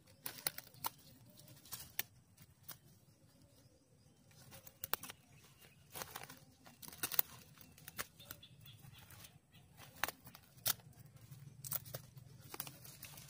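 Irregular crackling and rustling of dry leaf litter and napier grass as a person walks through the grass and pushes into it, with scattered sharp snaps.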